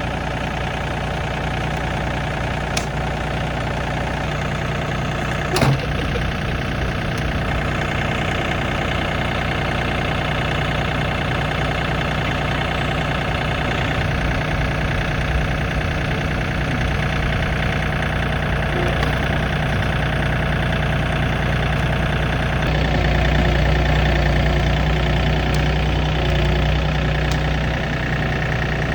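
A vehicle engine running steadily at idle, with one sharp knock a little under six seconds in.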